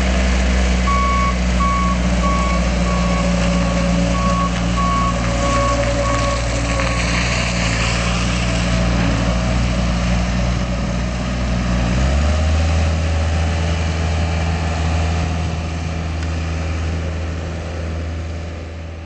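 2007 Bobcat S175 skid steer's Kubota diesel running steadily while its backup alarm beeps about ten times, roughly two beeps a second, for the first several seconds as the loader reverses. About twelve seconds in, the engine note steps up to a higher pitch and holds there, fading near the end.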